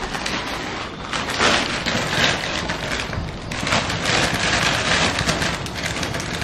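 Water heating in a wok over a gas burner: a steady hiss with many small crackles and ticks as bubbles start to form.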